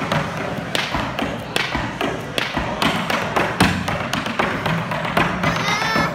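Irish dancer's hard shoes striking a wooden stage in a fast, uneven run of sharp taps and heavier stamps, over music.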